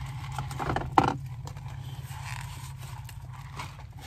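Handling noise as a foam drink cup is picked up: a sharp knock about a second in, then light scraping and rustling, over a low steady hum.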